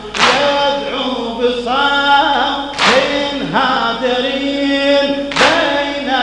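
A Shia mourning lament (latmiya) chanted by a crowd of men, the pitched chant running on, cut by a sharp unison strike of hands on chests three times, about two and a half seconds apart.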